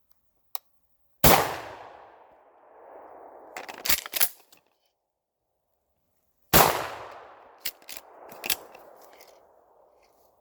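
Two gunshots about five seconds apart, each with a long echo rolling away, fired at a walking deer. Short clicks and clatter follow each shot.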